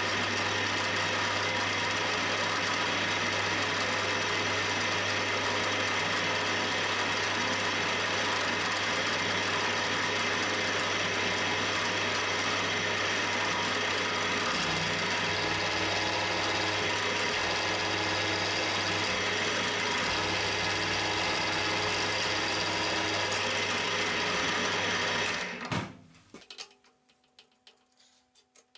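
Milling machine running steadily with its cutter working into a metal soft-jaw blank: a dense machine whine with several steady tones over the cutting noise. Near the end the spindle is switched off and runs down quickly, leaving a few light clicks and scrapes as the work is handled.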